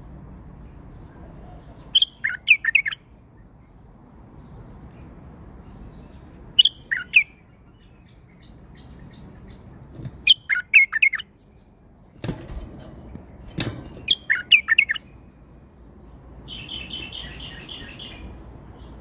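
Male white-eared bulbul singing loud, short phrases of quick whistled notes, four bursts a few seconds apart, then a softer buzzy chatter near the end. A couple of dull knocks come in the middle.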